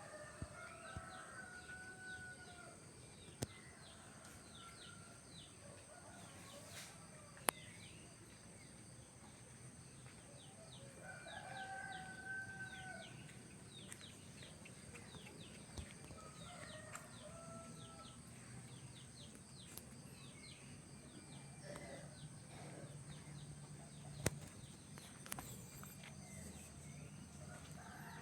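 Faint outdoor ambience: many short chirps of small birds, with a few drawn-out animal calls of about a second each, and a few sharp clicks.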